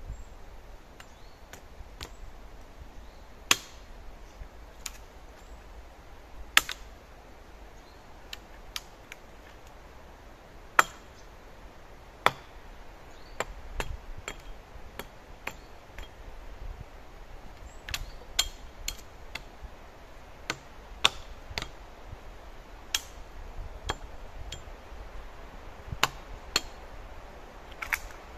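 Sharp knocks of a tool striking wood, coming irregularly about one or two a second, with a handful of much louder cracks among them.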